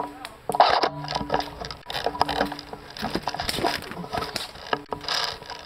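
Irregular rustling and crunching of someone moving on foot through brush and twigs, with a louder crunch about half a second in.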